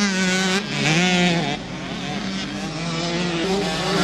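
65cc two-stroke mini motocross bikes running at high revs, the engine note dropping briefly and climbing again about a second and a half in as the throttle is worked.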